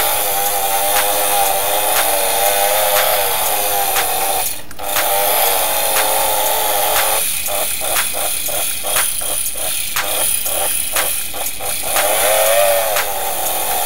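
Electric hand mixer (ABC-MIX) running its wire beaters through stiff, crumbly dough in a ceramic bowl, with a steady motor whine. The whine drops out briefly, then stutters about three times a second for several seconds as the beaters catch in the dough. Near the end it rises in pitch and falls again as the beaters come up out of the dough.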